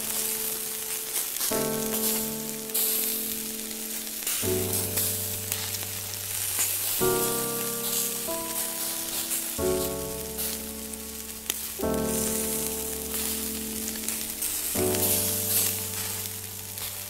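Meat sizzling on a hot grill plate, a steady crackling hiss, over slow background music whose sustained chords change every two to three seconds.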